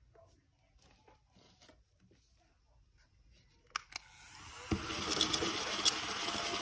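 Light handling clicks, then from about four and a half seconds in a louder stretch of paper rustling and crinkling as banknotes are handled.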